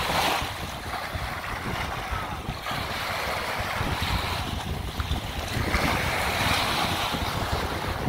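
Small waves washing in over a sandy shore, swelling and easing several times, with wind buffeting the microphone as a low rumble.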